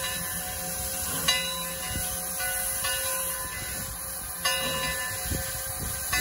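Antique steam locomotive standing with a steady hiss of escaping steam, its bell struck a few times, each stroke ringing on.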